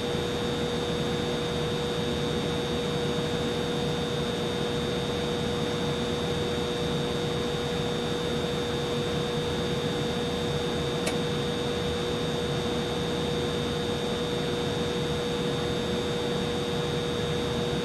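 Humidifier running: a steady machine hum with a constant mid-pitched tone and a thin high whine, unchanging throughout, with one faint tick about eleven seconds in.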